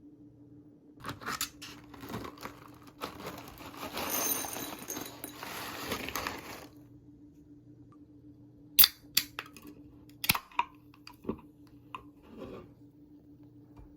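Rustling and tearing, like packaging being handled, for several seconds, then a series of sharp clicks and knocks, over a steady low hum.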